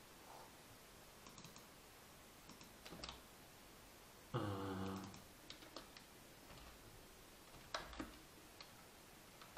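Faint, scattered clicks and taps of a computer keyboard and mouse. About four seconds in, a short low hum lasting under a second is the loudest sound.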